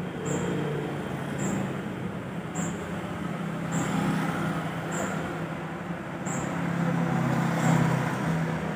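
Road traffic with motorcycles passing, a steady engine rumble. A short high chirp repeats about once a second throughout.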